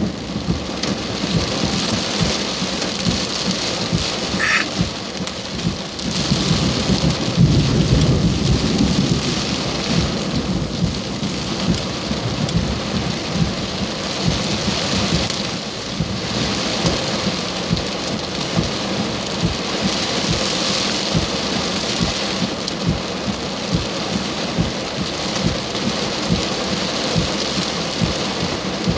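Heavy rain pouring down in a thunderstorm, with a rumble of thunder swelling about six seconds in and fading a few seconds later.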